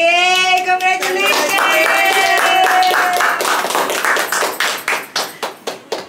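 Several people clapping, with long held cheering voices over the first three seconds; the claps carry on and thin out towards the end.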